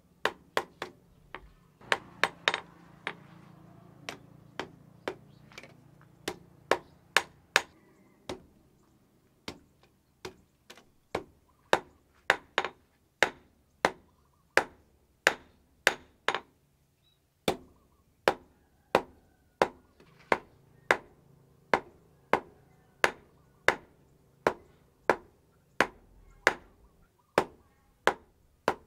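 Hand hammer striking red-hot steel cut from a chainsaw on a small steel post anvil, forging it into a machete. Sharp metallic blows, about two a second, come in runs with short pauses, each with a brief ring.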